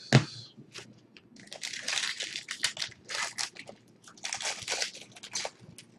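Plastic trading-card pack wrapper of 2011 Topps UFC Moment of Truth crinkling as hands tear it open and peel it off, in a run of crackling bursts. A sharp knock just after the start is the loudest sound.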